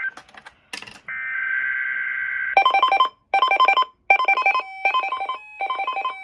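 Emergency Alert System SAME header: a harsh buzzing data burst, some crackle, then a second burst. From about two and a half seconds in, a rapidly pulsing electronic alert tone beeps in short repeated groups.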